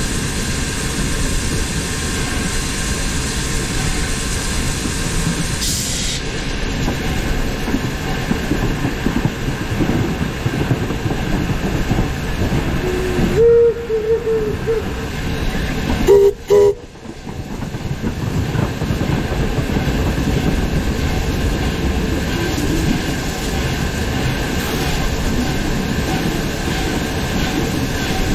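Virginia & Truckee No. 25 steam locomotive rolling along the track, a steady rumble of wheels and running gear on the rails. About halfway through its steam whistle sounds twice, a blast of about a second and then a shorter one, each holding two notes together.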